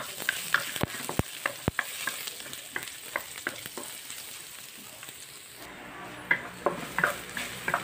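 Minced garlic sizzling in hot oil in a non-stick wok, stirred with a wooden spatula that taps and scrapes against the pan at irregular intervals, the taps thinning out about halfway through.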